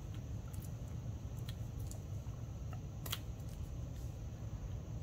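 Soft scattered clicks and paper rustles of die-cut cardstock and foam adhesive dimensionals being handled, with one sharper click about three seconds in, over a steady low hum.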